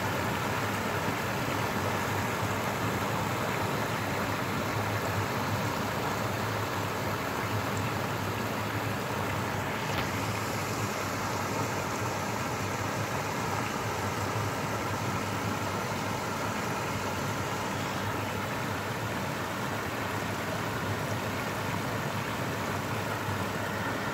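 Water pouring steadily over a low concrete weir and churning in the pool below, an even rushing sound.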